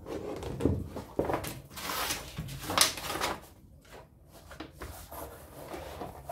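Paper template and leather sheet being handled and shifted on a workbench: irregular rustling and scraping with a few light knocks, busiest in the first half.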